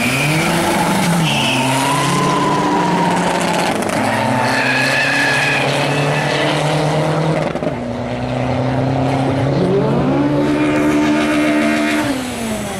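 Drag-race car engine revving up, running steady, then revving hard again about ten seconds in, holding high revs and dropping away near the end, with tyre squeal partway through.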